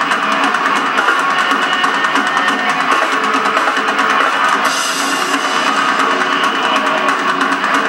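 Hardcore band playing live: distorted electric guitar over fast, busy drums with cymbals. The recording is harsh and thin, with no deep bass, as heard through a TV's speaker dubbed from VHS.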